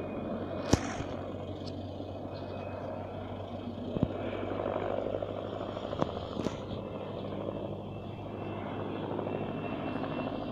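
Helicopter flying overhead at a distance, a steady drone of rotor and engine. A few sharp clicks cut through it, the loudest about a second in.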